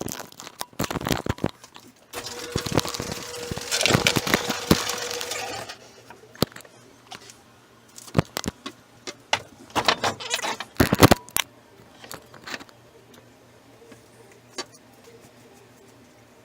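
Metal tools and engine parts clinking and rattling in a run of sharp clicks and knocks, with a louder stretch of clattering and a steady hum from about two to six seconds in.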